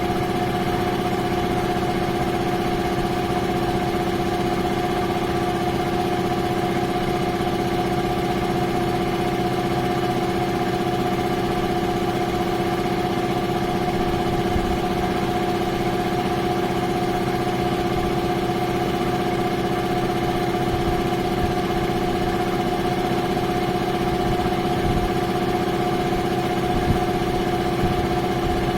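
JSI air compressor running steadily, its motor and pump giving a continuous sound at an even, unchanging pitch.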